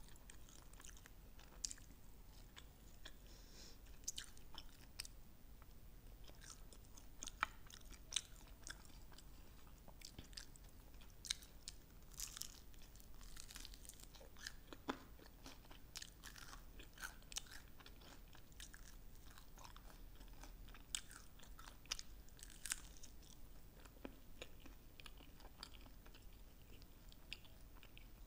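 A person biting and chewing sauced fried chicken wings, with irregular sharp crunches.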